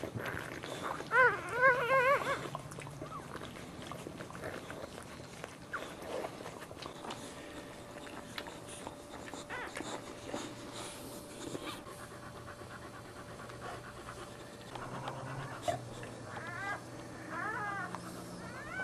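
Newborn Boxer puppies squealing in short, high, wavering cries while their mother licks them: a loud run of several cries about a second in, and a few fainter ones near the end. Between the cries the Boxer mother is panting.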